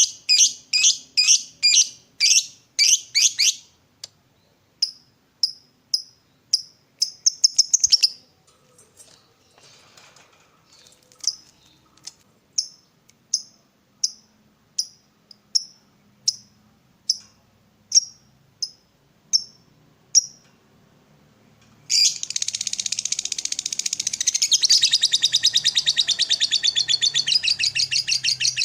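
Lovebird calls: sharp high chirps, first in a quick run, then single chirps spaced about one and a half a second, then after a short lull a long, fast rattling chatter, the lovebird's 'ngekek', used as a masteran to set other lovebirds calling.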